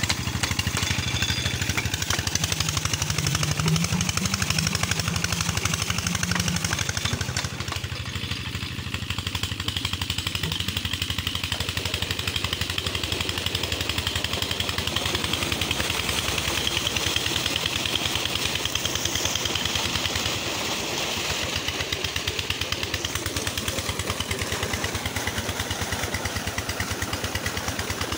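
Old 16 HP diesel engine running steadily with a rapid, even chugging beat as it drives a tube-well pump, with water gushing from the outlet pipe into a brick tank.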